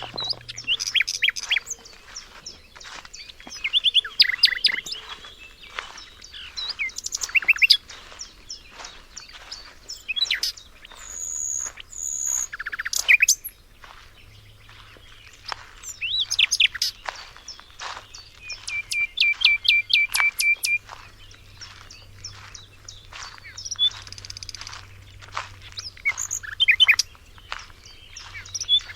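Several songbirds singing and chirping, with a mix of short chirps, whistled phrases and quick calls overlapping one another. Around two-thirds of the way through, one bird gives a fast run of evenly repeated notes lasting about two seconds.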